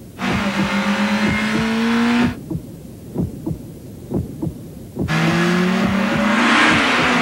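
Acura RSX engine revving in two bursts, its pitch climbing, with a whoosh of road noise under it. In the quieter stretch between the bursts a low heartbeat-like pulse thumps on its own, the sound design of a car commercial.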